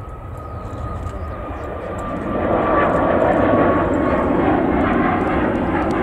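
Boeing 737 MAX 8's CFM LEAP-1B jet engines at take-off thrust during climb-out. The roar swells about two seconds in, with a steady high whine sliding slowly down in pitch.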